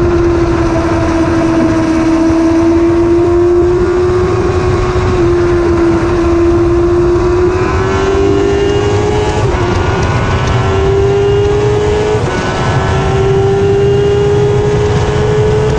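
1000cc sportbike engine at high revs on a racetrack, heard from an onboard camera: a steady engine note whose pitch climbs slowly, briefly broken about nine and twelve seconds in. Heavy wind buffeting on the microphone runs underneath.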